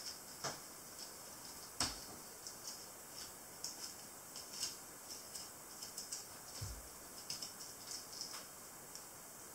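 Flexible filleting knife scraping and clicking faintly along the cartilage spine of a smoothhound as the fillet is cut free, in a run of small irregular ticks. A sharper knock comes about two seconds in and a dull thump near the end.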